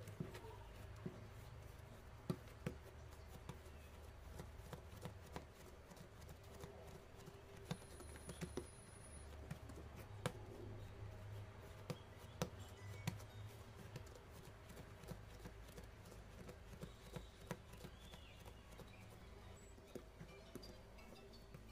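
Hands handling bread dough on a wooden cutting board: scattered soft taps and sharp little knocks as the dough is pressed, lifted and set down, over a low steady hum.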